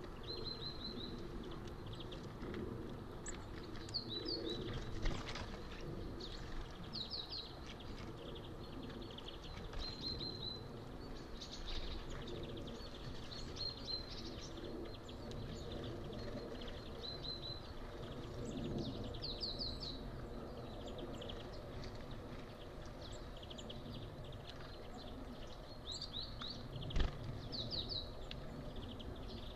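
Small songbirds calling on and off with short high chirps and brief whistled notes over a steady outdoor background hiss. A single low thump comes near the end.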